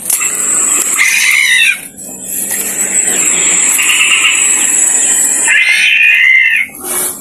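Recorded bird calls played loudly through a small portable speaker hung in a tree as a hunting lure: harsh, bending calls about a second in and again near the end, with a steadier, noisier call between them. A high steady whine runs underneath.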